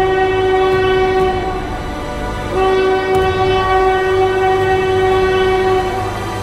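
Train horn sounding two long blasts: the first cuts off about a second in, and the second starts after a short gap and holds for about three seconds, over the low rumble of the oncoming train.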